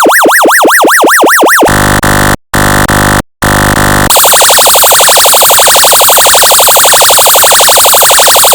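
Synthesized electronic siren tones from a function generator. A fast yelp sweeps up and down about four times a second. About two seconds in it switches to a steady, harsh buzzing tone in three blasts with two short gaps, and about four seconds in to a very rapid pulsing buzz.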